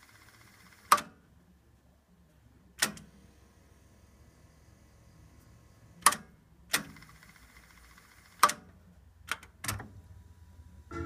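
Mechanical piano-key transport buttons of a Pioneer CT-F1000 cassette deck being pressed and released, seven sharp clicks spread over several seconds. A faint whir of the tape mechanism runs between some of them.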